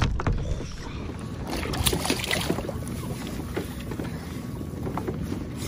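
Wind buffeting the microphone on open water from a fishing kayak, a steady low rumble, with a few light knocks of handling on the boat.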